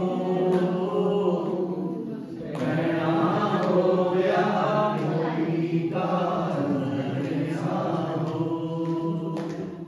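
A group of men singing together in unison, a slow chant-like prayer song in long held phrases, with a short breath about two seconds in.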